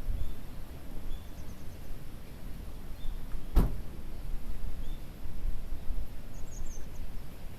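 Outdoor ambience: a steady low rumble with faint, scattered bird chirps, and one sharp click about three and a half seconds in.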